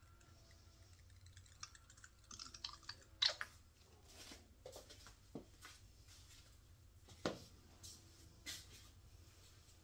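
Faint scattered clicks, taps and small crinkles of hands handling small objects, with the sharpest taps about three seconds in and again past seven seconds.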